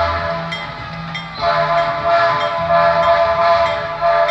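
Diesel locomotive air horn sounding in long held blasts, with a weaker stretch about a second in before it sounds again. The locomotive's engine runs underneath.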